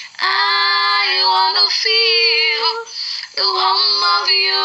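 High voices singing a gospel song, holding and sliding between long notes in three phrases with short breaks between them.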